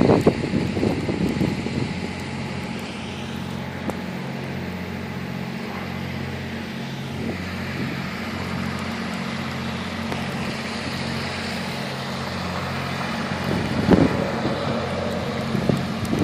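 Relief generators running steadily, a constant low engine hum, with wind and rustling over it.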